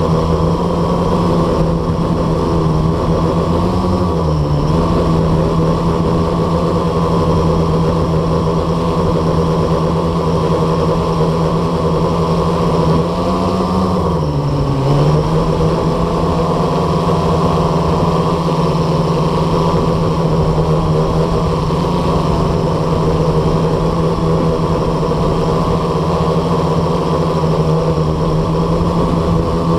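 Blade 350 QX quadcopter's electric motors and propellers droning steadily, heard through its onboard camera. The pitch swells up and dips back twice, about four seconds in and again around fourteen seconds, as the motors change speed to hold the hover.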